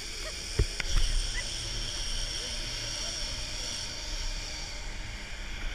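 Zipline trolley pulleys running along the steel cable, a steady high hiss that fades near the end as the ride slows, with wind rumble on the microphone. A knock about half a second in.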